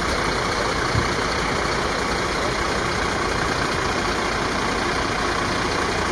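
Steady engine noise of an idling vehicle, like a truck, running without change, with one short knock about a second in.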